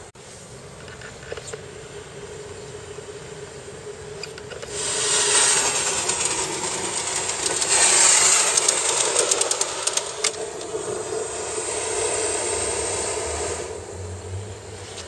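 Aster gauge 1 live-steam model of a DB class 01 locomotive running on track, a rushing steam hiss that swells about five seconds in, is loudest as the engine passes close, and fades again about nine seconds later.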